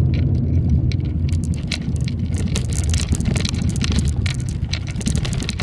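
Car driving, heard from inside the cabin: a steady low rumble of engine and road noise, with irregular small clicks and rattles over it.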